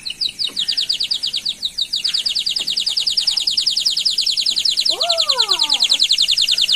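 Sparrow-shaped clay water whistle blown hard with water inside, giving a continuous rapid warbling trill, about ten notes a second, like a bird singing. It cuts off suddenly near the end.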